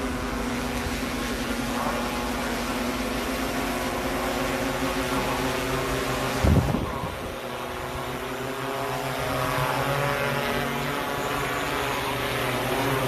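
Electric lift motors and propellers of a VTOL quadplane drone humming steadily with several steady tones. There is one brief thump about six and a half seconds in.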